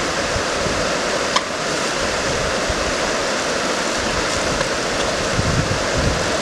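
Steady rushing noise of stormy wind and water, with low gusts buffeting the microphone near the end and a single sharp click about a second and a half in.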